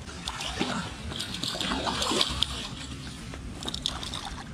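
Deps NZ Crawler Jr. winged topwater lure being reeled across the surface of a pond, its wings paddling the water in a continuous run of small splashes and gurgles.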